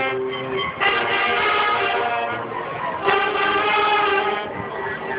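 Marching band brass playing held chords in phrases, with new phrases entering strongly about a second in and again about three seconds in.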